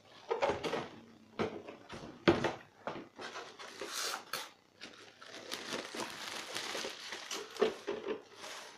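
Clear plastic wrapping crinkling and rustling as it is pulled off a plastic appliance housing, mixed with taps and knocks of the housing being handled. One sharp knock comes about two seconds in.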